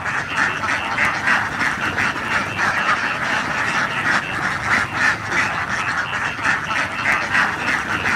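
A large flock of young domestic ducks quacking all at once, a dense, continuous chorus of many overlapping calls.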